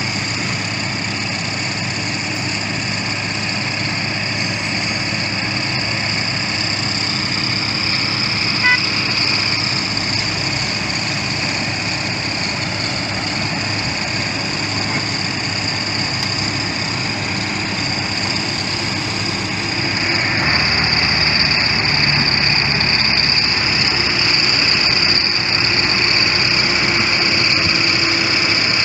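Heavy construction machinery running steadily, with a sustained high whine over the engine noise; it gets louder and changes character about two-thirds of the way through.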